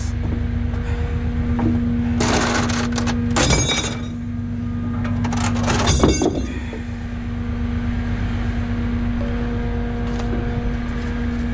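Truck running with a steady low engine drone and hum, with two brief clattering, rattling bursts, one about two seconds in and one about five and a half seconds in.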